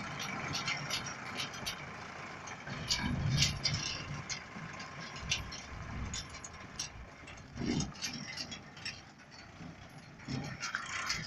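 Sonalika DI-35 tractor's diesel engine running as it pulls a trailer away, with frequent clicks and rattles, fading as it moves off.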